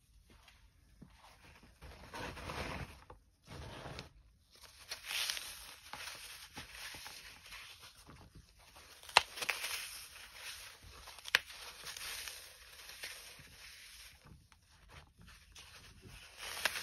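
Dry, unsoaked floral foam dusted with chalk powder being pressed and crumbled by nitrile-gloved fingers: uneven crisp crunching and crackling, with a few sharp snaps, the loudest about nine seconds in and again about eleven seconds in.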